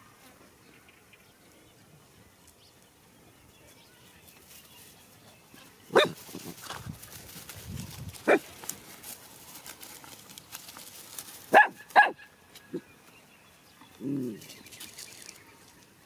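Dog barking: single sharp barks starting about six seconds in, two in quick succession around twelve seconds, then a lower, longer bark near the end.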